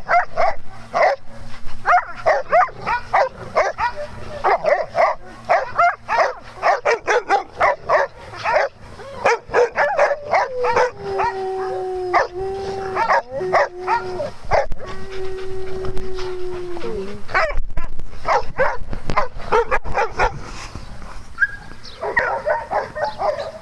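Several dogs barking and yipping rapidly in rough play. For about six seconds in the middle, one dog holds a long, steady howl.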